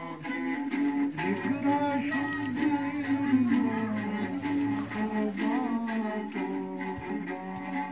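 Bowed folk fiddle playing a folk tune: long, sliding notes drawn with a bow, with a regular pulse of bow strokes.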